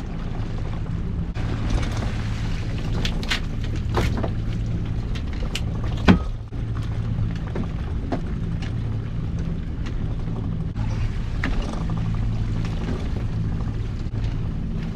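A string of lobster pots being hauled aboard a small fishing boat: the hauling rope creaks and clicks as it comes in, with sharp knocks of gear against the hull and one loud knock about six seconds in. Under it runs the steady hum of the boat's engine.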